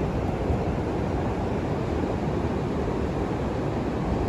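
Wind buffeting the microphone outdoors: a steady low rushing rumble with no distinct events.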